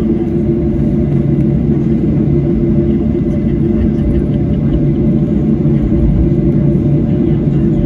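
Steady cabin rumble of a Boeing 737-800 on the ground, its CFM56 engines at idle, with a constant low hum and no changes.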